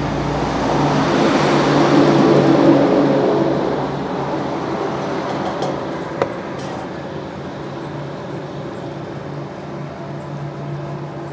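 A motor vehicle going past: its noise swells to a peak about two to three seconds in, then fades. Under it a steady low engine hum carries on throughout, and there is a single sharp knock about six seconds in.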